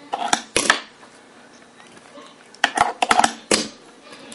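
Sharp clicks and clacks of small hard objects knocking on a metal box: a few near the start, then a quick run of them about two and a half seconds in.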